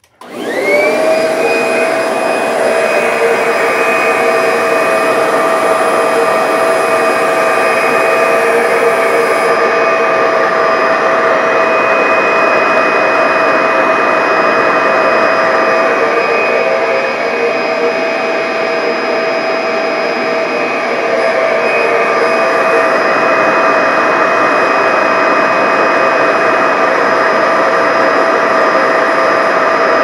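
Kirby vacuum cleaner in blow mode, pushing air through its hose into a paper vacuum bag. The motor spins up with a rising whine at the start, then runs steadily with a high whine over the rush of air.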